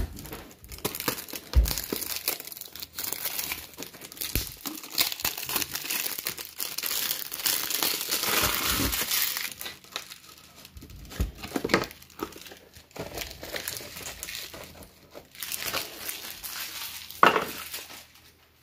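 Plastic wrapper on a pack of 130-point toploaders crinkling as it is opened and the rigid plastic card holders are worked out of it. A few sharp clicks are heard along the way.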